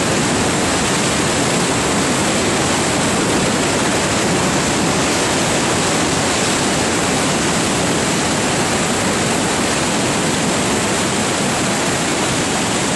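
High floodwater rushing through a dam, a loud, steady, unbroken rush of water.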